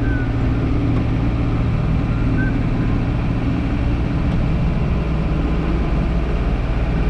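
Motor vehicle engine running steadily, a loud continuous low drone.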